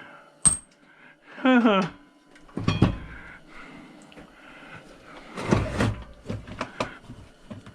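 Scattered knocks, clicks and clatter of chopsaw parts and tools being handled during a teardown, with a sharp click about half a second in and a burst of clatter past the middle. A short wordless vocal sound comes about one and a half seconds in.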